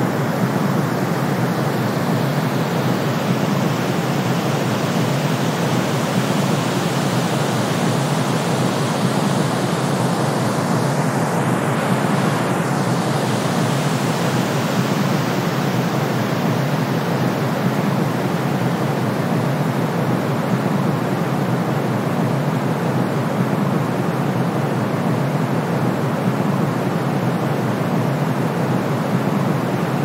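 Steady mix of brown noise and white noise: a deep, even rush with a fainter hiss on top, unchanging.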